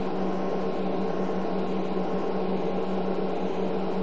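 Power Mac G5's cooling fans running at high speed during boot from a Linux live DVD, before the system's fan-control modules have loaded: a loud, steady whir with a steady low hum.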